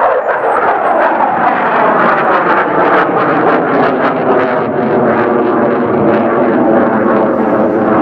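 A U.S. Navy F/A-18F Super Hornet's twin General Electric F414 turbofan engines heard from the ground as the jet flies its display: loud, steady jet noise with a slowly shifting tone.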